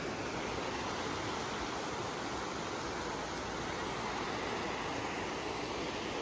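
Shallow, rocky river rushing over stones in small rapids: a steady, even rush of water.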